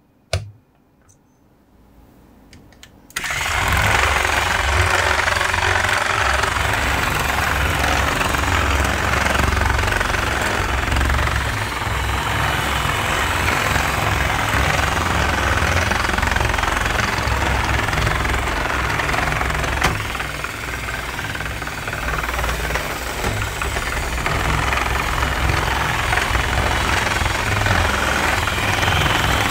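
Small battery motor of a plastic building-block toy vehicle switching on about three seconds in and running steadily, its plastic gears meshing and turning the wheels, heard as a loud, even whirring buzz. Before it starts, a single click of a plastic piece being pressed on.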